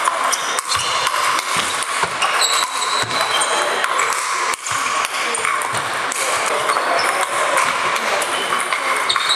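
Ping pong balls clicking off sandpaper bats and the table, many short irregular clicks from more than one table at once, over a steady background hubbub in the hall.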